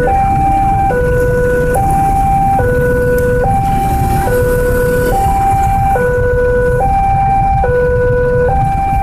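Railway level-crossing warning alarm sounding, a two-tone signal switching back and forth between a lower and a higher note, each held a little under a second, over a low rumble.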